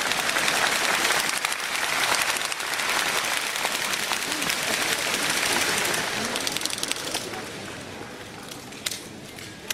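Audience clapping, dense at first, then thinning and dying away over the last couple of seconds, with a single sharp knock near the end.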